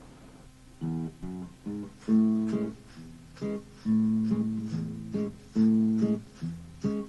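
Guitar music: strummed acoustic guitar chords in a steady rhythm, starting about a second in, as the introduction to a song.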